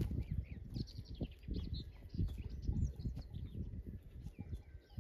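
Small birds chirping in quick, varied phrases over the irregular thuds of rubber-booted footsteps walking on a stony dirt path.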